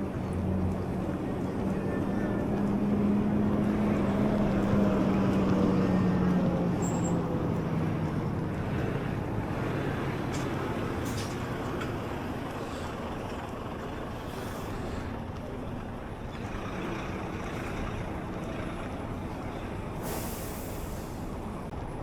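A heavy vehicle, likely a truck, driving past: a low engine hum swells over the first few seconds, drops slightly in pitch and fades away, leaving steady road and wind noise.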